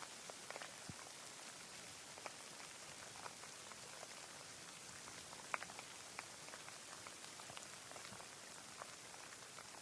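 Steady rain falling, a soft even hiss with scattered individual drops pattering close by, one drop louder than the rest about halfway through.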